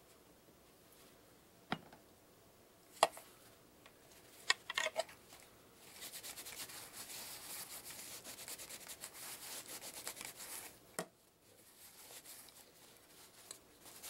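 Paper towel dampened with isopropyl alcohol being rubbed over the plastic ear cup of a 3M WorkTunes hearing protector, a steady scratchy wiping from about six seconds in. A few light taps come before it, and there is a single knock about two thirds of the way through.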